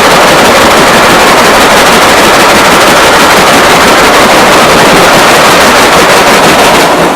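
Homemade rain sound effect: a loud, dense, even patter of countless tiny impacts imitating heavy rain, dropping away abruptly at the very end.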